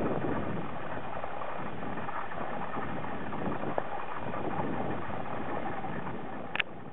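Steady wind noise rushing over a compact camera's built-in microphone, with one short click near the end as the sound fades away.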